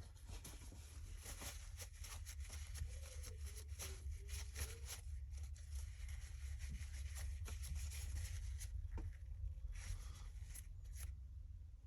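A cloth wiping down Glock 43 pistol parts: irregular scratchy rubbing strokes mixed with small clicks and taps as the parts are handled.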